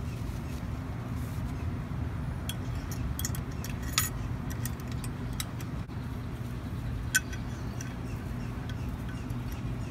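Light metal clicks and taps of rocker arms and push rods being fitted by hand into the valve area of a small lawn mower engine's cylinder head, two sharper clicks about four and seven seconds in. A steady low hum continues in the background.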